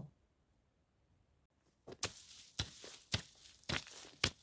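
Short-handled hammer striking dusty, stony ground beside a rock: five sharp blows about half a second apart, starting about halfway in after a couple of seconds with almost nothing heard.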